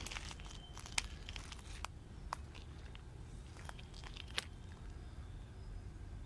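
Faint scattered clicks and crackles over a low steady rumble, the sharpest about a second in and at about four and a half seconds; the clicks thin out in the last couple of seconds.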